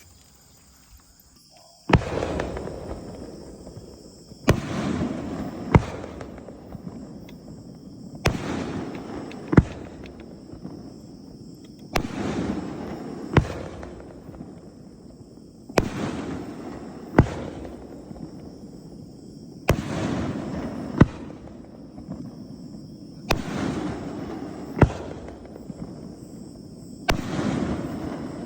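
A 3-inch and 5-inch brocade crown display shell cake firing shot after shot. Sharp bangs come in pairs about every four seconds, each pair trailing off into a long rolling rumble, starting about two seconds in after a near-quiet opening.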